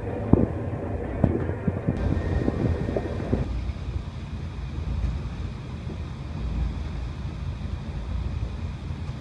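Passenger train running, heard from inside the carriage. There are a few sharp knocks and rattles in the first three seconds, then the sound changes to a steady low rumble.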